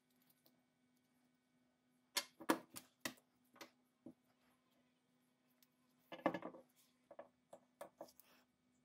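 Short clicks and knocks of a screwdriver and the metal parts of an antique pepperbox pistol against each other and the wooden workbench as the gun is taken apart. The loudest clusters come about a quarter of the way in and again about two-thirds through, with scattered single clicks between, over a faint steady hum.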